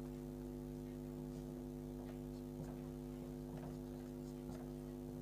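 Steady electrical mains hum made of several even tones, with a few faint strokes of a marker drawing short dashed lines on a whiteboard in the second half.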